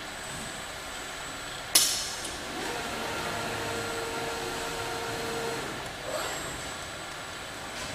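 Gantry palletising robot at work over a steady machinery background: about two seconds in a sudden loud burst that fades within a fraction of a second, then a steady whine for about three seconds as the robot arm moves up and away from the pallet.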